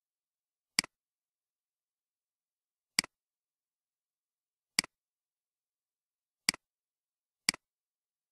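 Five separate computer mouse clicks, each a press followed at once by a softer release, spaced one to two seconds apart, with dead silence between them.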